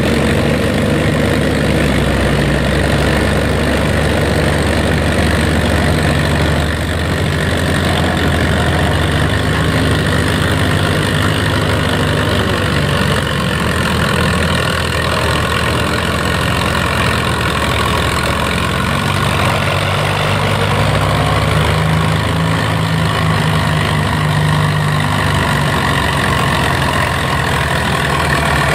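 Farmall M tractor and the truck-powered pulling sled running at low speed and idling together, a steady engine drone that shifts pitch a little about two-thirds of the way through.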